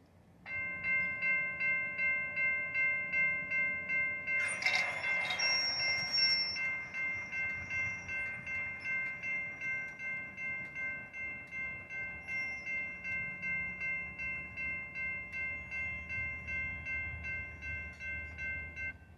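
NEG electronic railroad crossing bell ringing steadily at about two strikes a second. It starts about half a second in and stops just before the end, while the crossing is activated for an approaching train. A short clatter and a brief high whine come about five seconds in.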